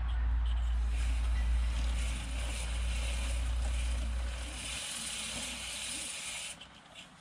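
Aerosol chain spray hissing steadily onto a motorcycle's drive chain for about four seconds, then cutting off sharply near the end. It is heard over a low rumble that fades out about two-thirds of the way through.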